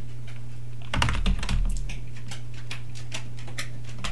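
Keystrokes on a computer keyboard: a short quick run of typing about a second in, then scattered single key presses, over a steady low hum.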